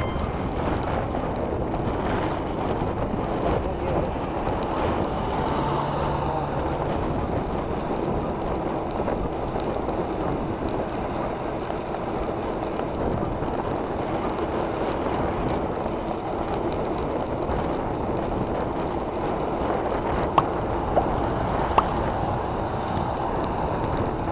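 Steady wind rush on the microphone of a camera moving along a road, mixed with road noise, with three short sharp clicks near the end.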